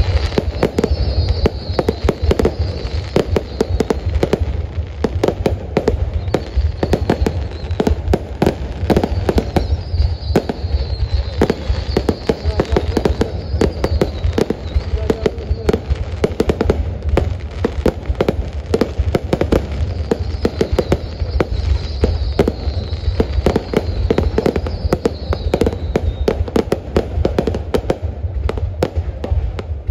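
Aerial fireworks display: a loud, unbroken barrage of rapid bangs and crackles, several shells bursting every second.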